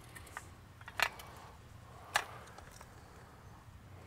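Aluminum landscape rake being drawn through loose, dry garden soil: a few short, sharp scrapes of the tines, the loudest about a second in and another just after two seconds.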